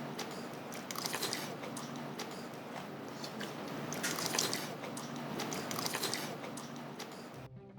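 A person eating pork gukbap close to the microphone: chewing, with a scattering of short sharp clicks.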